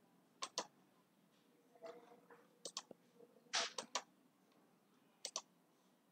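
Computer mouse clicking: sharp clicks, mostly in quick pairs, four times over a few seconds.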